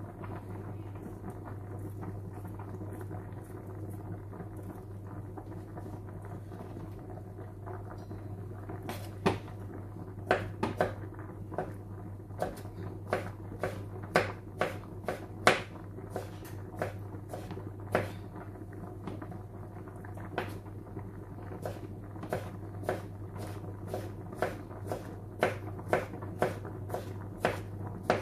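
Knife chopping gherkins on a wooden cutting board: sharp, irregular knocks about two a second, starting about nine seconds in. Under them, a pot of pasta bubbling at the boil and a low steady hum.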